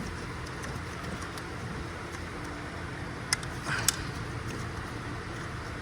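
Light clicks as parts and tools are handled during engine disassembly, two brief ones a little past halfway, over a steady low background hum.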